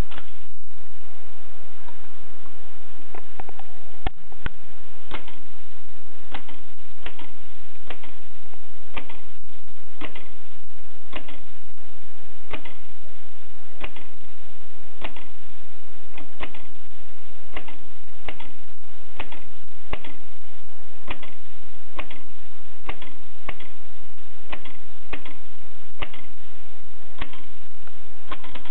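AEG Mignon index typewriter typing, a sharp clack for each character at a fairly even pace of somewhat under two a second.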